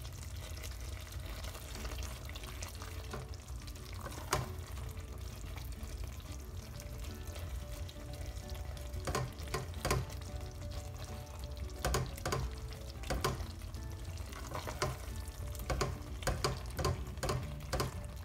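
A spatula stirring and scraping thick, simmering lamb and pumpkin curry in a cooking pot, breaking the soft pumpkin down into the sauce, with scattered knocks of the spatula against the pot, more of them in the second half.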